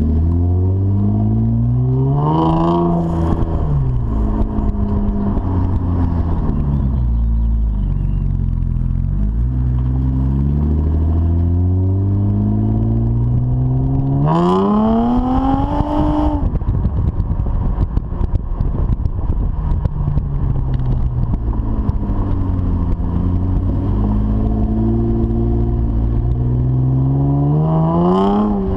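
Saturn Aura's 3.6-litre V6 running through a 2.5-inch cat-back exhaust with a Vibrant resonator and Magnaflow muffler while the car accelerates: the engine pitch climbs and drops at each gear change, with hard revs that rise steeply about halfway through and again near the end.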